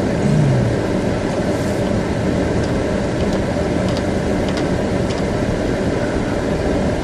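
Steady in-cabin driving noise of a Pontiac Grand Prix with its 3800 V6 engine: engine drone mixed with tyre and road noise while driving on snow-covered roads.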